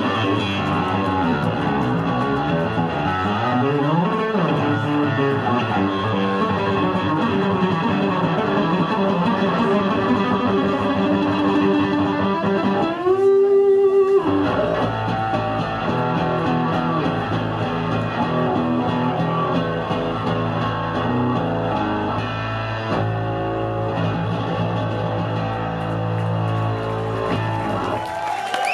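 Solo electric bass guitar (a white Yamaha) played live through a stage amplifier rig, with effects. A note slides up and back down about four seconds in, a loud held note wavers in pitch around the middle, and sustained low notes and chords ring on after it.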